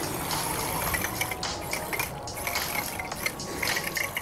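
Paddle wheels of a homemade RC paddle boat churning and splashing through shallow creek water, in an uneven, continuous wash with irregular splashes.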